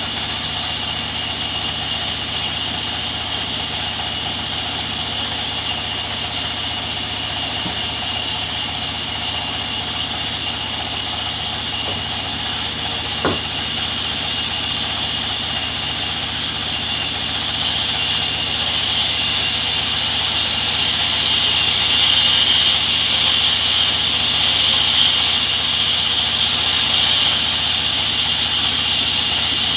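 Sawmill saw machinery running steadily with a constant high whine over a low hum. A louder hiss rises from a bit past the middle until near the end, as the saw cuts through the teak log. There is a single sharp click about halfway.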